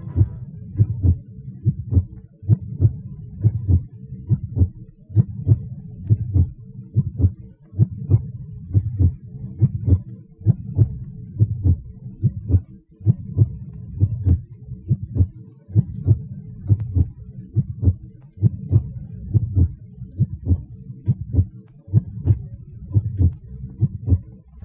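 Heartbeat sound effect: low double thumps repeating at a steady rhythm, over a faint held drone.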